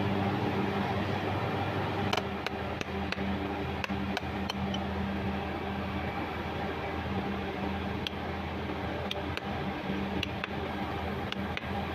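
Irregular light metal taps through a brass drift, seating a new 16008 ball bearing onto a worm wheel's hub, starting about two seconds in, over a steady mechanical hum.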